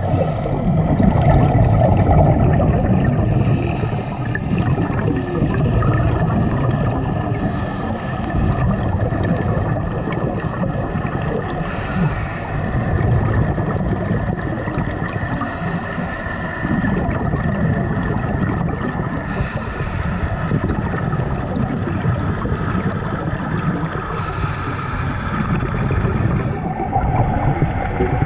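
Scuba breathing heard underwater: a short hiss from the regulator about every four seconds, over a steady low rumble of water.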